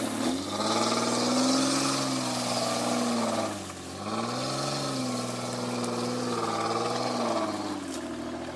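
Off-road 4x4's engine revving in two long pulls: the pitch rises and is held, dips briefly about halfway, rises again with some wavering, then falls back toward idle near the end.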